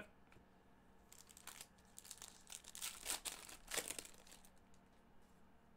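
Foil trading-card pack wrapper crinkling in gloved hands, in a run of irregular crackles from about a second in, loudest near the four-second mark.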